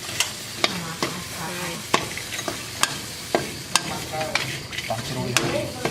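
Food sizzling as it fries in a pan, stirred with a utensil that clicks sharply against the pan about a dozen times at uneven intervals.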